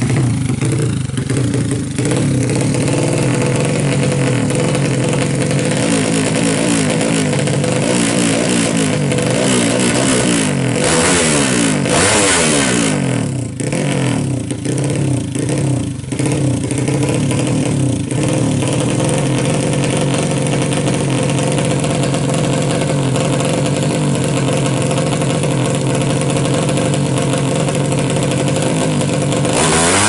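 Yamaha Jupiter Z underbone drag bike, its single-cylinder four-stroke engine bored up to 200cc, running loud through an aftermarket racing exhaust. It holds a fast idle, is revved up and down repeatedly for several seconds around the middle, then settles back to a steady high idle.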